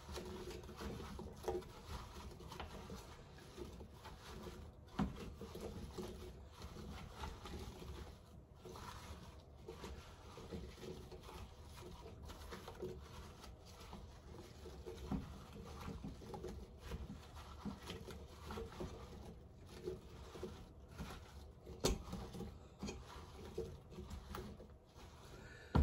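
A spoon stirring sliced apples in a pot on the stove: irregular soft knocks and scrapes of the spoon against the pot, with the apple pieces tumbling, and a few sharper knocks now and then.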